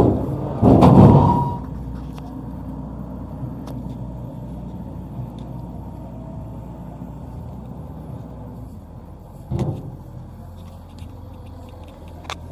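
An engine running steadily with a low hum. A loud rushing burst comes about a second in, and a thump comes near ten seconds.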